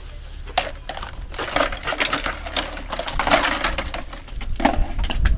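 Dishes being hand-washed in a plastic basin: cups and pots clinking and clattering in quick, uneven knocks, starting about half a second in.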